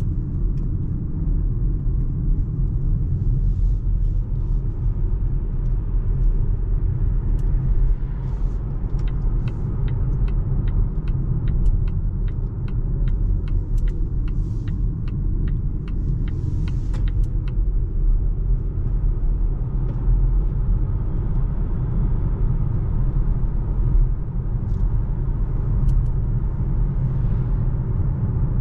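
Steady low road and tyre rumble inside the cabin of a moving Volvo C40 Recharge Twin electric car, with no engine note. A regular ticking, about two a second, runs for several seconds in the middle.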